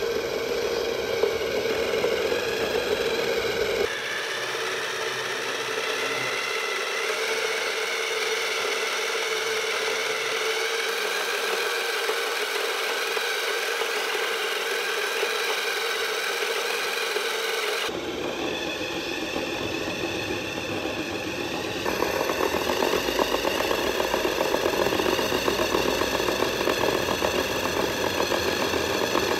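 Small electric motor and gearbox of a 1:12-scale RC Porsche Cayenne whining at high speed, fed from a variable power supply turned up past its normal voltage, with its tyres spinning against concrete in a burnout. The pitch and loudness change abruptly a few times.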